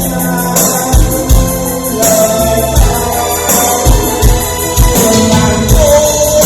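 Backing music for a Vietnamese ballad, with a steady drum beat under a melody line.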